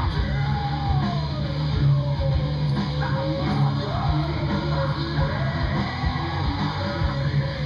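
Background rock music with electric guitar and a steady beat, with singing over it.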